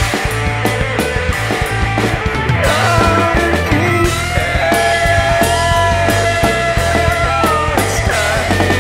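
Rock band playing: drums, bass and guitar, with a lead line of long held, sliding notes coming in about two and a half seconds in.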